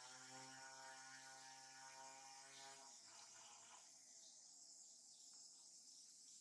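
Faint outdoor ambience of insects buzzing steadily and high-pitched, with a low steady drone that stops about three seconds in.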